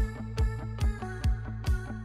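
Background music with a steady beat, a little over two thumps a second, under sustained pitched notes.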